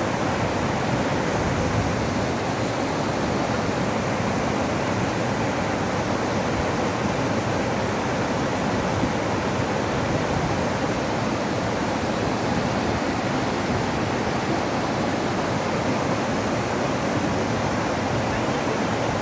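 Mountain stream cascading as white water over boulders: a steady, unbroken rush of water.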